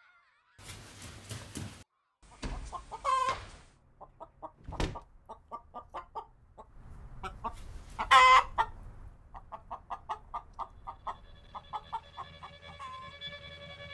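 Hen clucking in a run of short, evenly repeated clucks, with two louder squawks about three and eight seconds in.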